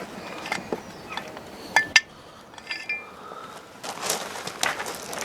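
Metal tools and engine parts clinking during hand work on a motorcycle engine, with two sharp metallic clinks close together about two seconds in, the second ringing briefly, then rustling handling noise near the end.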